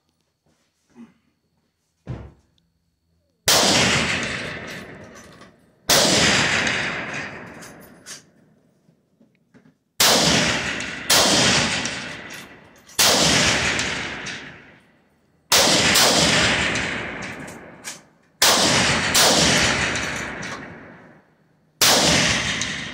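Rifle shots fired one at a time along a high-power rifle match firing line. There are about nine loud shots at uneven gaps of one to four seconds, each ringing out for a second or two, and a fainter shot about two seconds in.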